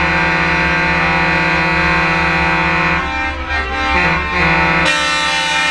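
Truck air horns sounding a loud, long steady chord. About three seconds in the notes shift and glide for a couple of seconds, then the steady chord returns.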